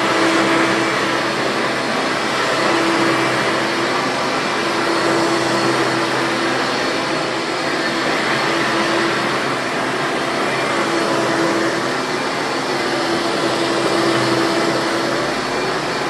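Vacuum cleaner running steadily while vacuuming, its motor hum fading in and out. One of the motor's two bearings has just been replaced, and the other is thought to need it too.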